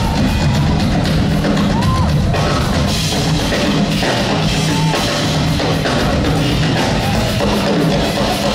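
Two drummers playing a loud, busy drum duet on Gretsch drum kits, with bass drums, toms and cymbals played live.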